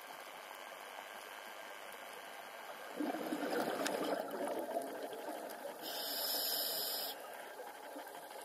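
Scuba diver breathing through a regulator underwater. A bubbling exhalation starts about three seconds in and lasts a couple of seconds, then an inhalation hiss follows about six seconds in, over a steady underwater hiss.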